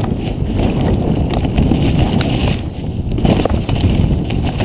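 Wind rushing over the microphone and the rumble and rattle of a downhill mountain bike rolling fast over a rough dirt trail, with scattered sharp clicks and knocks as it goes over bumps.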